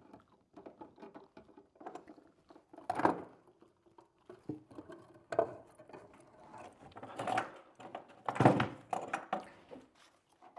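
Intermittent knocks, clicks and clatter of hand work on an electrical outlet and its wall box. There are several sharp thumps, the loudest about three seconds in and again around eight seconds in.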